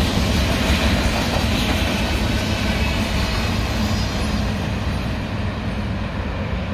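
Freight train of covered hopper cars rolling past, steel wheels running on the rails. The end of the train goes by, and the sound slowly fades as it pulls away, its hiss dying off over the last couple of seconds.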